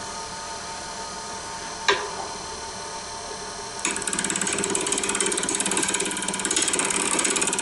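Wood lathe running with a steady hum, and a single sharp knock about two seconds in. About four seconds in a turning tool meets the spinning bark-covered log blank and a louder, rapid, even clatter begins: the tool catching on the uneven surface as the rough outside is turned off.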